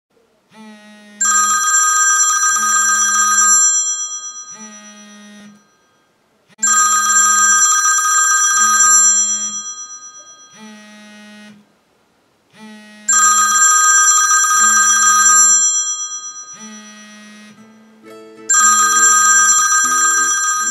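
A telephone ringing four times, about six seconds apart, each ring a loud trilling bell that fades away. Plucked ukulele music comes in near the end.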